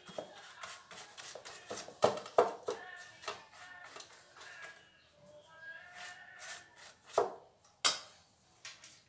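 A silicone pastry brush dabbing and stroking fat onto sheets of phyllo dough in an aluminium baking tray: soft brushing with scattered clicks and knocks against the tray, the sharpest about two seconds in and twice near the end.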